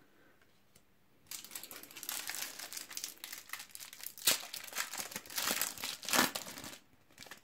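Foil wrapper of a Panini trading-card packet crinkling as it is handled and torn open. It starts about a second in, with a couple of sharper crackles of tearing foil.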